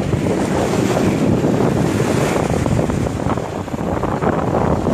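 Seawater surging and rushing in foaming waves across flooded ground as the sea rises over the shore, with wind buffeting the microphone.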